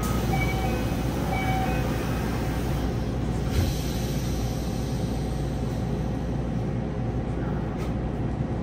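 Yokohama Municipal Subway 4000 series train running between stations, heard from inside the car: a steady rumble of wheels and running gear on the rails, with a brief knock about three and a half seconds in.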